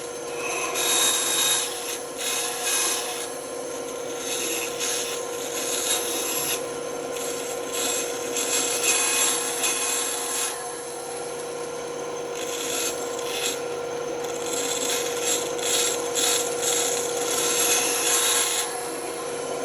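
Band saw running with a steady hum while its blade cuts through wood, the cutting noise swelling and easing again and again.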